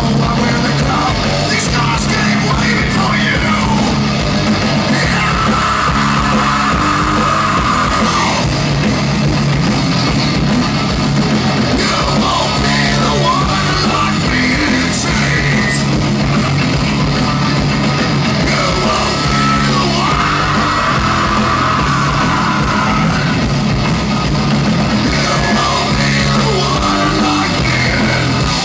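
Live heavy metal band playing loud: distorted electric guitars, bass and drums, with a singer yelling into the microphone.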